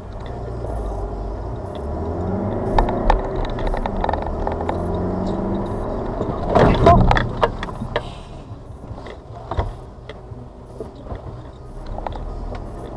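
Car engine and road noise heard from inside the cabin as the car pulls away, speeds up and slows to a stop. A brief louder sound stands out a little past halfway.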